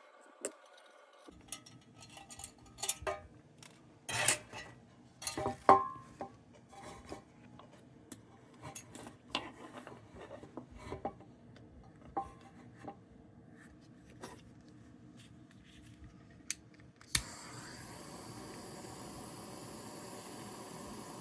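Light metallic clinks, taps and scrapes of tools against tin lantern parts on a workbench during a solder repair, loudest about four to six seconds in. About seventeen seconds in, a sharp click is followed by a steady hiss.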